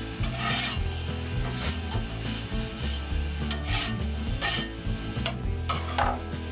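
A blade scraping across a 3D printer's bed in several short strokes.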